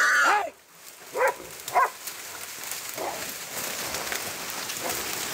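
Wild hog and hunting dogs scuffling: a long high squeal breaks off about half a second in, and two short sharp cries follow about a second later. After that, palmetto brush rustles and crackles.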